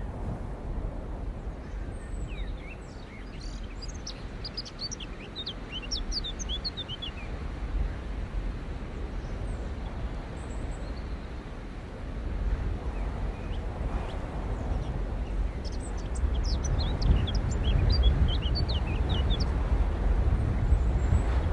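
Outdoor ambience: a bird singing in two spells of quick, high chirping notes, one about two seconds in and another around sixteen seconds, over a steady low rumble that grows louder in the second half.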